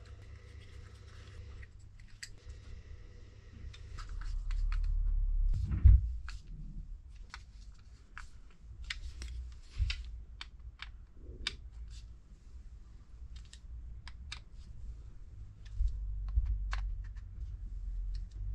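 Small parts of a Bing 33 carburettor being handled and fitted together by hand: a run of light, scattered clicks and taps, with a bump about six seconds in.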